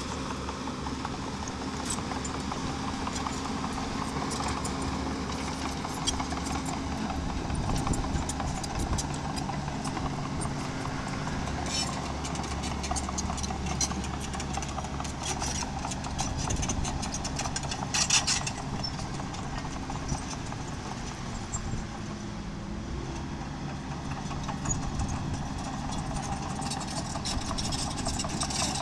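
Small crawler dozer working, its engine running steadily under a fast, continuous clatter of steel tracks and stone. There is a sharp clank about 18 seconds in.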